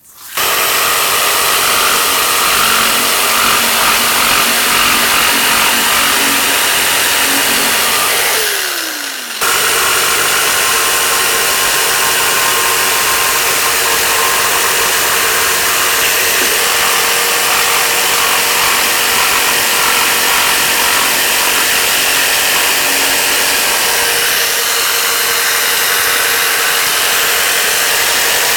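Barrel-grip jigsaw cutting through a wooden window stool along a scribed line. The saw runs steadily, stops briefly about eight seconds in with its pitch falling as the motor winds down, then starts again and cuts on.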